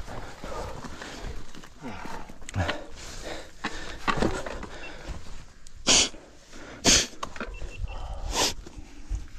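A mountain biker breathing hard while stopped after riding, with breath-like strokes that fall in pitch, then three loud short puffs of breath in the second half.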